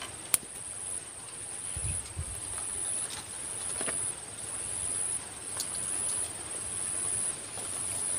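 Insects droning at a steady high pitch over faint open-air ambience, with a few small handling clicks and a soft low thump about two seconds in.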